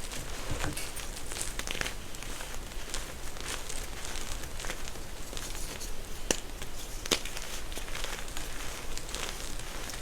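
A crunchy star reform being crushed close up: continuous crackling and crumbling, with a few sharp snaps, the clearest two about six and seven seconds in.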